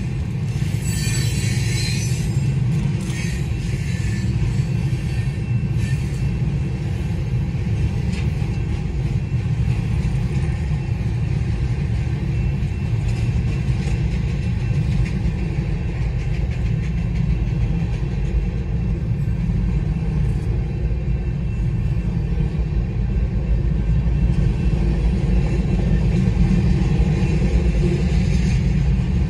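Freight cars of a BNSF manifest train, tank cars and covered hoppers, rolling past a grade crossing: a steady low rumble of wheels on rail, heard from inside a car. It grows a little louder near the end.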